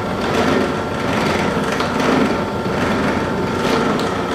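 Benchtop drill press running with a steady motor whine, spinning a Lee case-trimmer cutter against a brass rifle case, brass rubbing on the cutter. The trim isn't going right because the case hasn't been deprimed.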